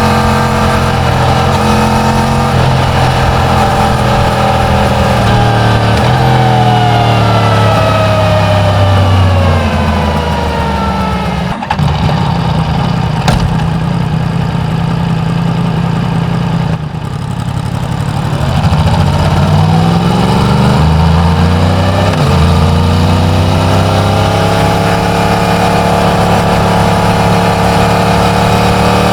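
Yamaha MT-10's crossplane inline-four on its stock exhaust, heard from the bike while riding: it runs steadily, the revs fall for several seconds as it slows, a couple of sharp clicks sound, then the revs climb again with a gear change partway before it settles back to steady running.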